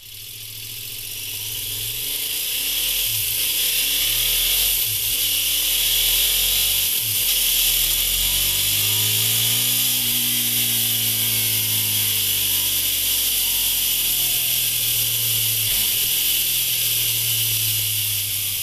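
KTM 1190 Adventure's V-twin engine with a MIVV Speed Edge slip-on exhaust, running at steady revs under a strong steady hiss. The sound fades in over the first few seconds, then holds.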